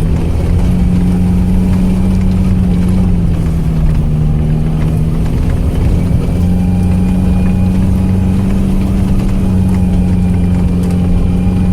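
ARO off-road vehicle's engine running steadily under way, its note dropping a little a few seconds in and rising back about halfway through as the revs change.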